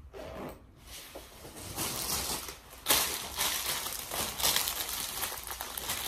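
Clear plastic packaging bag crinkling as it is handled and pulled open: faint at first, it starts up about two seconds in and gets suddenly louder about three seconds in.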